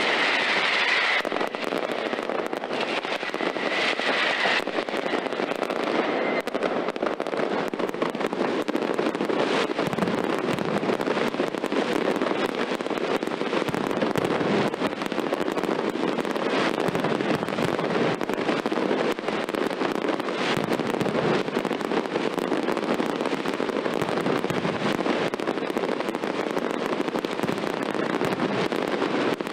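Mascletà: a dense, unbroken rattle of firecracker bangs, from ground-level batteries and aerial firecrackers bursting overhead. A high whistle sounds twice in the first few seconds.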